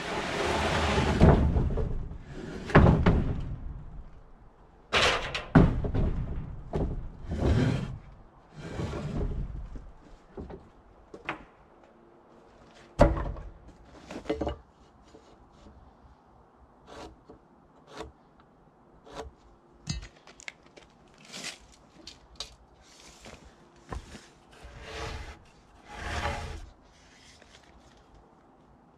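Wooden boards knocking and clattering as lumber is pulled from a pile and set down, loudest and busiest in the first ten seconds, with one sharp knock about thirteen seconds in. After that come lighter, scattered clicks and short scrapes.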